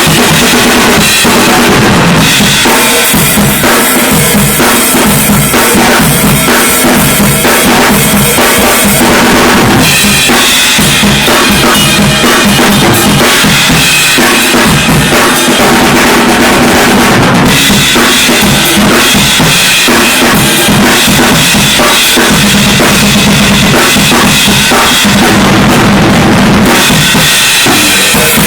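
Acoustic drum kit played continuously in a studio sound check: steady kick and snare grooves under cymbals, the pattern changing every several seconds.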